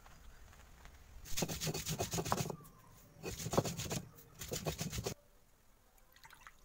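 Stone roller grinding fresh Bermuda grass on a flat stone grinding slab, crushing it to a paste: three bouts of rough scraping and rolling, each about a second long, with short pauses between.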